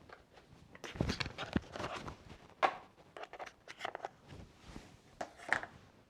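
Small hardware being handled on a motherboard: a run of irregular clicks, taps and light scrapes as parts and a screwdriver are set down and fitted.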